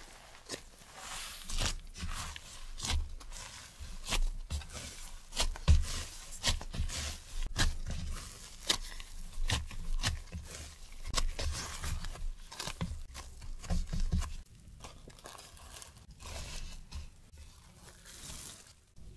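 Gloved hand stretching and folding whole wheat dough in a wooden bowl: many short sounds of the dough pulling, tearing and slapping down, with soft thumps. Quieter for the last few seconds, with plastic wrap crinkling as it is laid back over the bowl.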